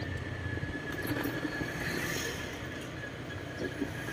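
Motor vehicle driving along a road: a steady engine and road rumble with a thin, steady high whine above it.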